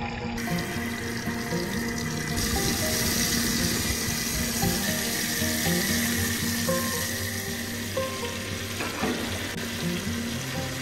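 Pieces of coho salmon sizzling in hot butter in a cast-iron skillet on a gas grill, the sizzle turning louder and brighter a couple of seconds in as more pieces go into the pan. Background music plays throughout.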